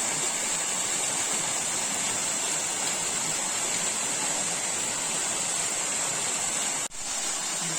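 Waterfall rushing: a steady wash of falling water that cuts out for an instant about seven seconds in.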